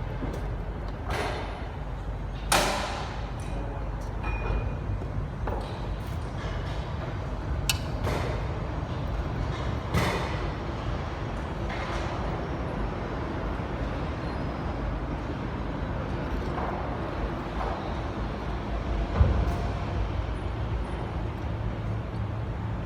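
Several sharp metallic knocks and clanks, one ringing briefly like a ping, over a steady low hum of machinery.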